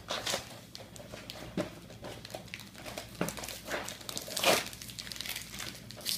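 Plastic snack-bar wrappers crinkling and tearing as they are opened by hand, along with cardboard boxes being torn open. Irregular crackles, loudest about four and a half seconds in.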